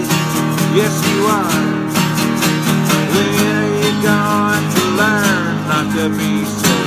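Acoustic guitar strummed in a steady rhythm, with a man's voice singing a sliding melody over the chords.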